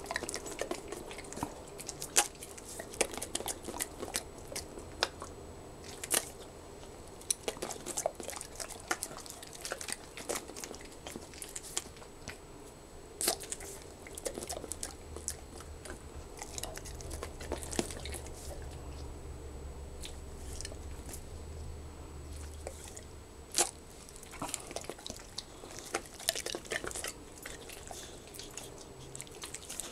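Pit bull terrier mixes biting and chewing small dry food pieces taken from a hand: sharp, irregular crunches and teeth clicks, some of them much louder than the rest.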